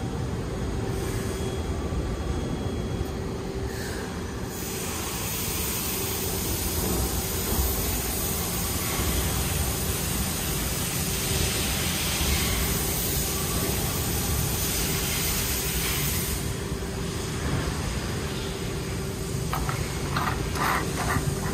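Steady background rumble and hiss. Near the end come a few light clicks as the push-button flush-mount fuel cap on a Harley-Davidson Road King tank is pressed and pops open.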